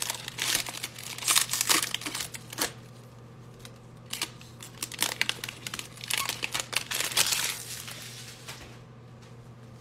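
Foil wrapper of a trading card pack crinkling and tearing as it is pulled apart by hand, in bursts of crackle that are loudest in the first three seconds and again about five to seven seconds in, then die down near the end.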